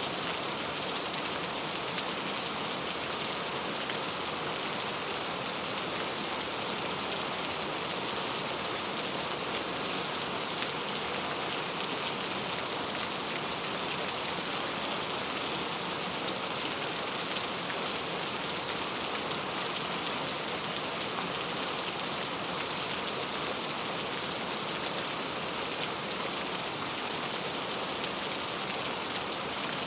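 Heavy rain falling steadily, an even hiss of rain on surfaces with scattered individual drops.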